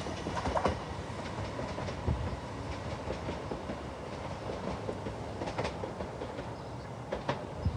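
Class 377 Electrostar electric multiple unit running away along the track, its wheels rumbling and clicking over the rail joints. The sound slowly fades as the train moves off.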